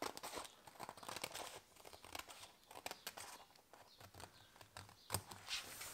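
Scissors cutting through a paper template: faint, irregular snipping and paper rustling, with one sharper click about five seconds in.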